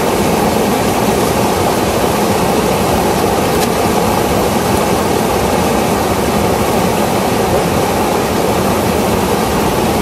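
Water pouring over a low stone river weir: a steady, loud rush of falling water close by.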